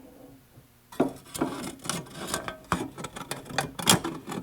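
Hand tools being handled: an irregular run of sharp clicks, knocks and scraping that starts about a second in.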